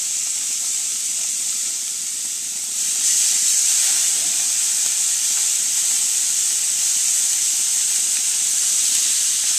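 Marinated boneless chicken thighs sizzling on the hot grates of a gas grill: a steady hiss that gets louder about three seconds in as more pieces are laid on.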